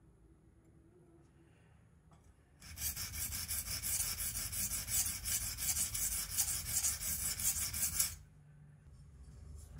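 Small deba knife blade rubbed back and forth on a whetstone in quick, even strokes, a rasping scrape of steel on stone. It starts about two and a half seconds in and stops about two seconds before the end.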